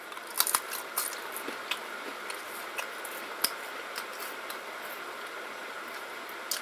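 Chewing a small, crisp, baked animal-shaped cracker. There is a close run of sharp crunches in the first second, then scattered softer crunches.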